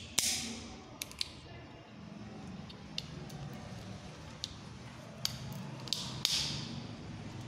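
Small screwdriver prying open the plastic case of a fridge compressor's overload protector: about ten scattered sharp clicks and snaps as the catches give. The loudest comes right at the start and another strong one about six seconds in, over a low steady hum.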